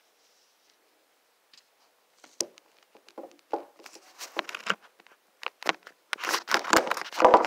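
Irregular clicks, taps and rustling, starting about two seconds in and growing denser and louder near the end.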